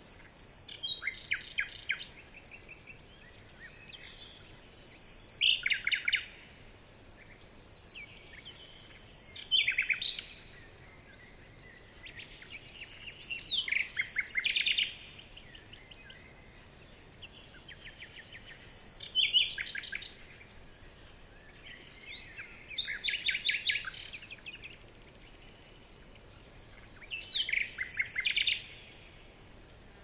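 A songbird singing short, rapid trilled phrases, one about every four to five seconds, each lasting a second or two.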